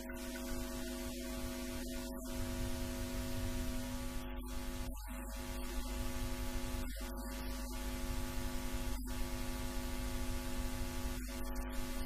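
Steady electrical mains hum with hiss on the recording, a buzz of many evenly spaced tones, broken by several brief dropouts.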